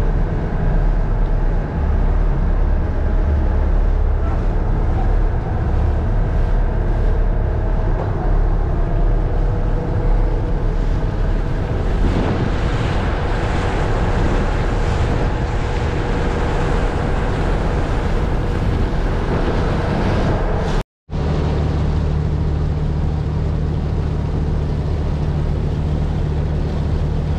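Passenger ship's engine running steadily under way, with water rushing along the hull and wind on the microphone. The sound breaks off briefly about 21 seconds in and comes back as a steadier engine hum with a clearer low tone.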